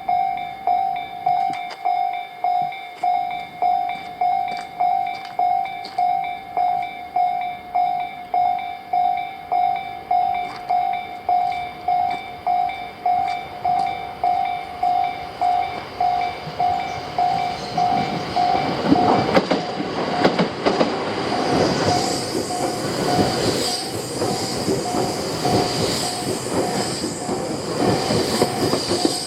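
Electronic level-crossing warning bell ringing in a steady, even beat of about one and a half strikes a second. From about 19 seconds in, a Tobu Railway train rolls through the crossing: loud wheel-and-rail clatter over the bell, which keeps ringing underneath.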